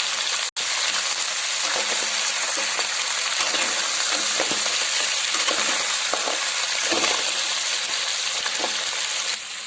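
Sea crabs frying in mustard oil in a pot: a steady sizzle that cuts out for an instant about half a second in.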